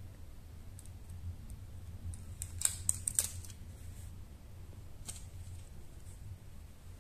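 A few small sharp clicks and taps, close together about two and a half to three seconds in and once more near five seconds, over a low steady hum.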